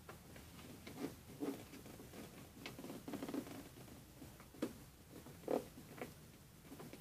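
A sheet of 80 g/m² A4 paper being folded by hand: irregular short crinkles and rustles as it is handled and creased, the loudest about five and a half seconds in.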